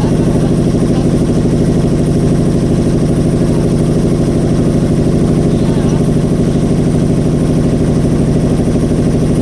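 Motorboat engine running steadily at an even speed, a constant pulsing drone.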